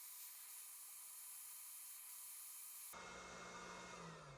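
Hot air rework gun blowing, a faint steady hiss of air. About three seconds in the sound changes and a low hum sets in, which drops in pitch near the end.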